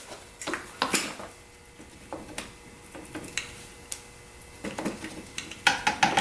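Metal hand tools and engine parts clinking and knocking: scattered light metallic clicks about a second apart, with a quicker cluster near the end.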